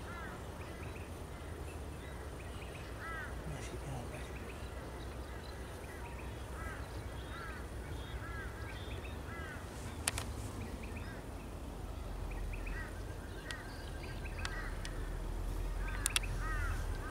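A bird calling over and over with short, arched chirps, often in pairs, over a steady low rumble that grows louder near the end. Two sharp clicks come partway through.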